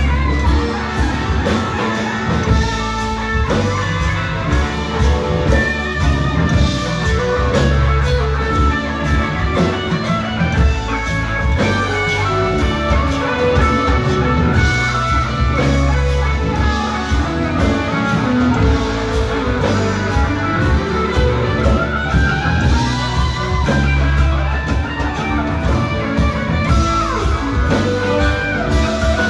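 Live rock band playing: electric guitar lead over bass guitar, drum kit and keyboards, with some notes gliding in pitch.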